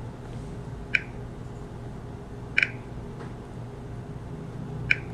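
Three short, sharp clicks, about one, two and a half and five seconds in, as PIN digits are keyed on a Smartmatic vote-counting machine's touchscreen keypad, over a faint steady hum.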